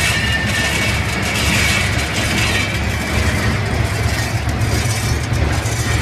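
Copper wire granulator running, a steady mechanical drone with a low hum and a faint high whine in the first couple of seconds, while it chops scrap cable into copper granules.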